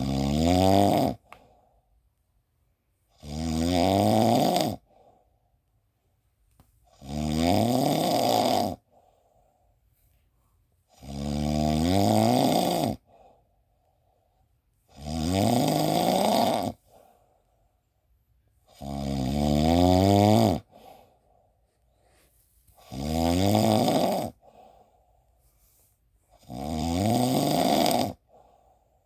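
Snoring in a slow, regular rhythm: about eight drawn-out snores, one roughly every four seconds, each lasting one and a half to two seconds, with quiet breaths between.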